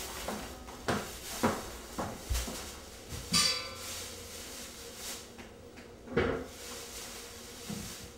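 Kitchen handling sounds: a string of separate knocks and clatters as a bowl and cookware are set down and moved, one of them ringing briefly about three and a half seconds in.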